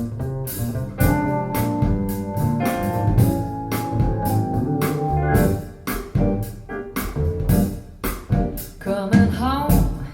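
Recorded music played through Wharfedale Linton Heritage loudspeakers: an instrumental passage with held keyboard chords and a steady drum beat.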